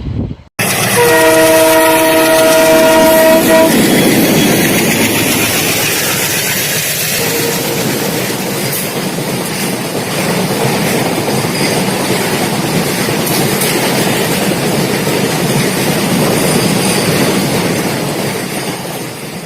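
An Indian Railways freight locomotive sounds one multi-tone air horn blast, about two and a half seconds long. The train then rushes past at speed with loud, steady wheel and wagon noise and clickety-clack on the rails.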